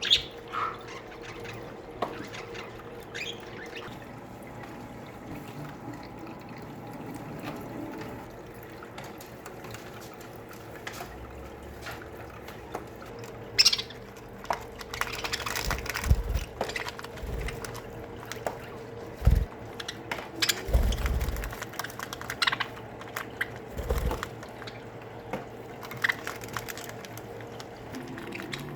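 Budgerigar colony chattering in an aviary, with scattered sharp chirps and clicks. Through the second half come a series of deep thumps and knocks.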